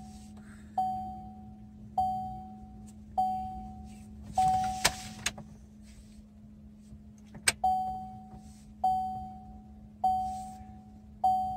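A car's warning chime dinging evenly, about once every 1.2 seconds. It pauses for a few seconds in the middle around a couple of sharp clicks and a brief rustle, then resumes. A faint steady hum runs underneath.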